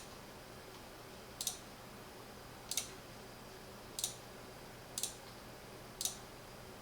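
Computer mouse button clicked five times, about a second apart, each click a quick press-and-release double tick, over a faint steady hum.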